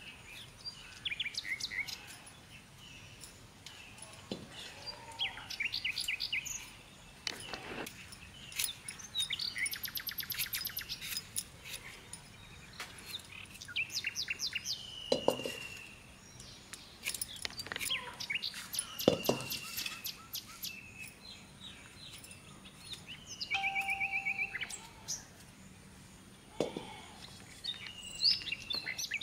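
Small birds chirping and trilling in repeated short phrases, some as quick runs of high notes and some as brief falling calls. Several brief thumps sound under them, the loudest about nineteen seconds in.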